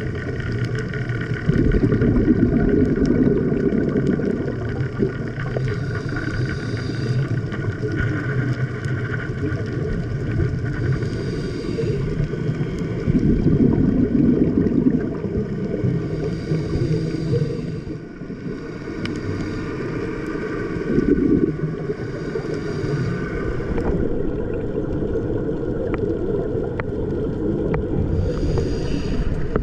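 Underwater recording of a scuba diver breathing through a regulator: a short hiss of inhalation every five or six seconds, alternating with the rumbling gurgle of exhaled bubbles, over a faint steady hum.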